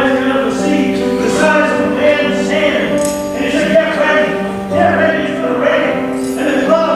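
Worship music with singing over sustained chords.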